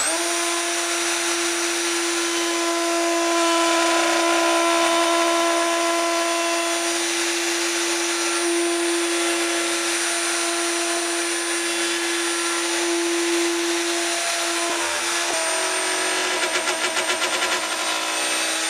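Triton plunge router winding up to speed at the start, then running steadily as its dovetail bit cuts a groove through the spline jig into the box corner. There is a slight change in pitch and a brief wavering in loudness near the end of the cut.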